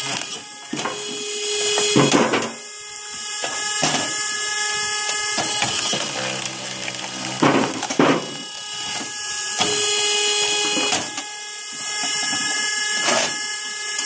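Electric-powered vertical log splitter working: a steady motor-and-pump whine while the ram drives a multi-blade wedge down through log rounds, broken by sharp cracks and knocks as the wood splits, over two splitting cycles.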